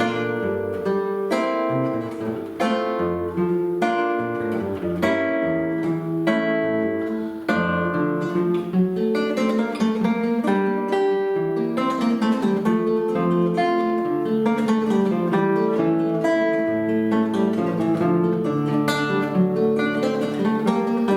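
Two acoustic guitars playing a duet: plucked melody notes ringing over a sustained bass line, in a gentle steady tempo.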